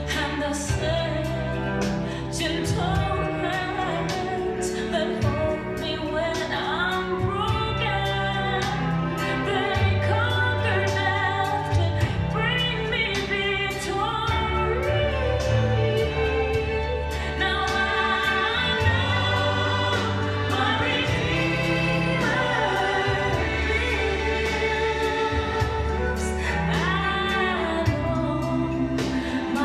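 A gospel-style song: a solo voice sings long, wavering lines over sustained low accompaniment.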